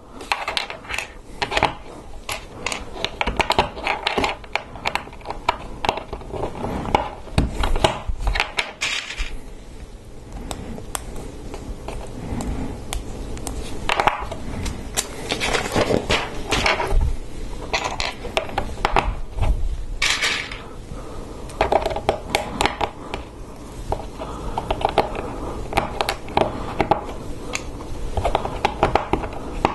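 Plastic LEGO Technic parts clicking and clattering as pins are pressed into beams and pieces are fitted together by hand: many short, irregular clicks with a few louder clusters.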